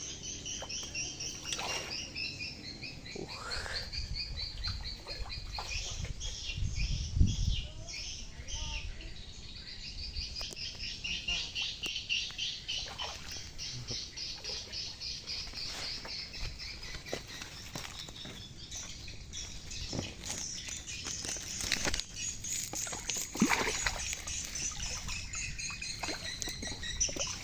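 A steady outdoor chorus of high, rapidly pulsing chirps from wildlife, with a few brief knocks, the loudest about seven seconds in and again near the end.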